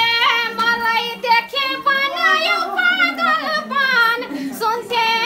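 A woman singing a Nepali lok dohori melody in a high voice, with wavering ornaments and slides on the held notes, over light musical accompaniment.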